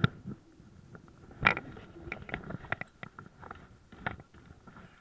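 Irregular clicks, knocks and rubbing from a spinning rod and reel being handled right against the camera, with the sharpest knocks just at the start and about a second and a half in.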